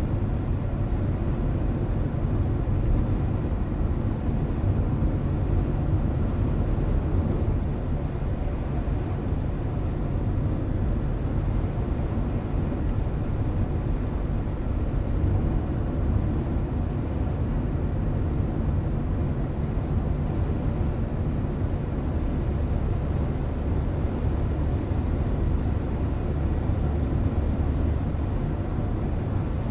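Steady low rumble of a car driving at an even speed, tyre and road noise with the engine underneath, heard from inside the cabin.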